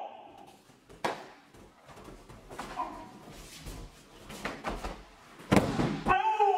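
Karate practitioners' bodies and feet thudding on tatami mats during throws and takedowns: a sharp thud about a second in, then a louder thud near the end followed by a short shout.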